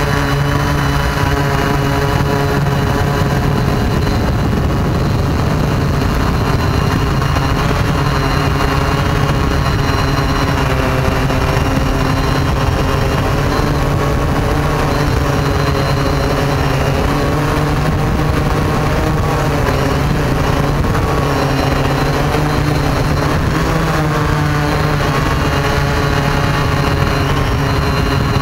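Multirotor drone's electric motors and propellers buzzing steadily in flight: a low hum with many overtones that waver slightly in pitch, heard close up from the drone's own camera.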